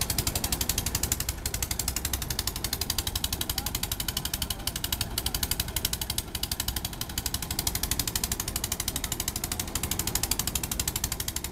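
Vintage wooden threshing machine running under load as sheaves of wheat are fed in, driven by a SOMECA SOM 40 tractor: a rapid, even mechanical clatter over the low drone of the engine.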